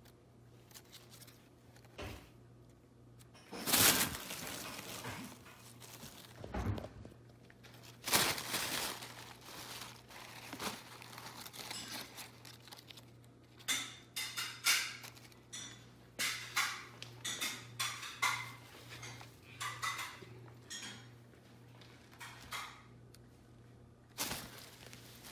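Tissue paper rustling and crinkling in irregular bursts as a cat bats at a dangled string toy and scrambles underneath it. There are louder bursts about four and eight seconds in, then a quick run of short crackles in the middle and more near the end.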